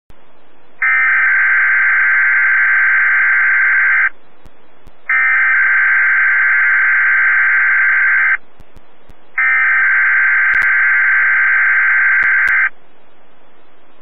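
Weather radio broadcast sending its EAS/SAME digital header three times: three even, loud data screeches of about three seconds each, about a second apart, with radio hiss in the gaps. The bursts encode a Required Weekly Test and serve to trigger alert-equipped weather radio receivers.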